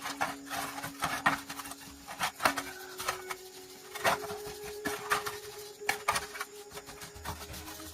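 Irregular knocks and taps, several a second, over a faint steady hum that steps up in pitch about a third of the way in.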